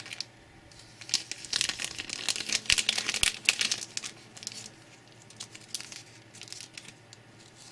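Thin clear plastic bags crinkling as they are handled and pulled open, in quick crackly bursts that are busiest in the first half and thin out toward the end.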